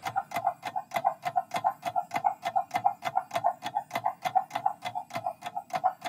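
Quiz countdown-timer sound effect: fast, steady clock-like ticking, about five ticks a second.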